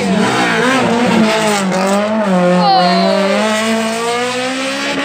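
Rally car's engine revving hard as the car comes up and goes round a roundabout, its pitch dipping and rising with the throttle. A short falling whistle sounds about halfway through.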